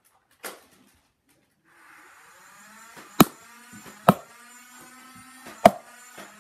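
A Nerf Modulus blaster's battery-powered flywheel motors spin up and whir steadily, with three loud, sharp knocks over the whir. A single click comes about half a second in, before the motors start.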